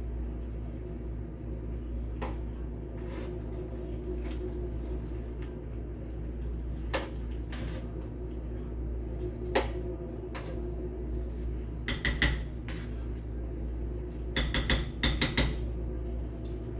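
A cooking utensil knocking and clinking against a pan as the Hamburger Helper is stirred: a few single knocks, then quick runs of clinks about two-thirds through and again near the end, over a steady low hum.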